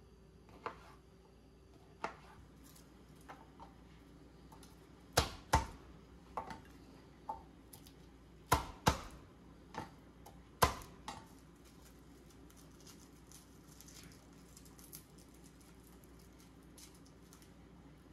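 Chef's knife chopping on a plastic cutting board: irregular sharp knocks, loudest and most frequent in the first half, including two quick pairs of strikes. In the second half only faint small clicks and rustles remain, as garlic cloves are peeled by hand.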